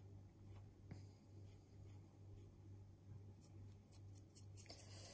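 Faint scratchy rustling of fingers stirring and hollowing out dry flour in a glass bowl, with small ticks that come more often in the second half. A low steady hum lies under it.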